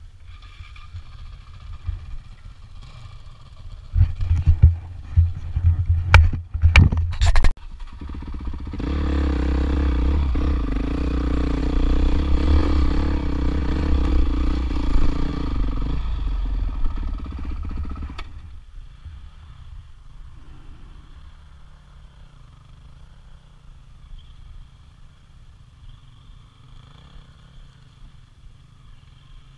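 Off-road motorcycle engine running on a rough trail climb: a few loud knocks about four to seven seconds in, then the engine pulling hard for about ten seconds, and afterwards running quietly at low revs.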